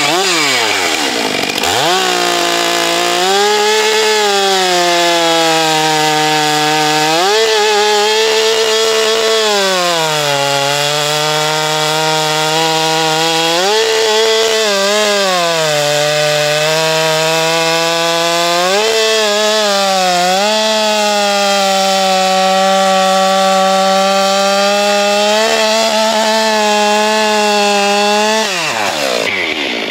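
Two-stroke chainsaw with a 25-inch bar and a skip-tooth chain running at high revs, cutting through a log. Its engine pitch sags and recovers several times as the chain bites, and it drops briefly near the end.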